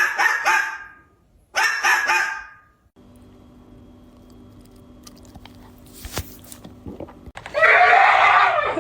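A dog giving loud cries: two of about a second each at the start, then a longer one near the end, with a faint steady hum between.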